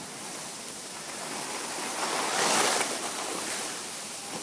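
Skis hissing and scraping over packed snow as the skier carrying the microphone slides downhill. The scrape swells sharply for about half a second, two and a half seconds in, like a ski edge biting in a turn.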